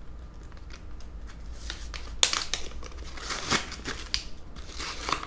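Plastic crinkling and rustling as a roll of self-fusing rubber tape and its plastic liner are handled, in irregular bursts that are busiest from about two seconds in.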